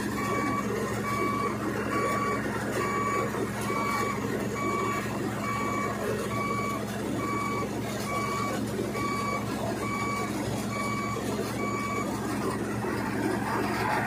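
Malkit combine harvester's diesel engine and threshing drives running steadily while it unloads grain through its auger. A short electronic warning beep repeats about once a second and stops near the end.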